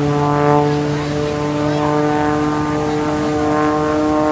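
Small aerobatic airplanes flying overhead: a steady engine-and-propeller drone whose pitch slowly drifts upward.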